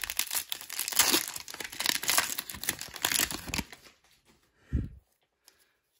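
Foil trading-card pack being torn open and crinkled, a dense crackle that lasts about three and a half seconds, followed by one short low thump.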